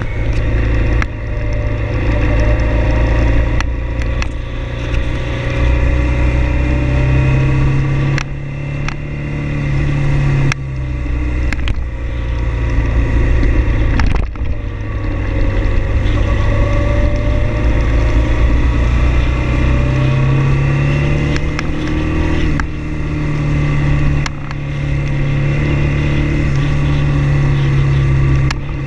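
Motorcycle engine running under way on a winding road. Its note climbs steadily as it accelerates, then drops off sharply several times as the rider shifts or rolls off the throttle.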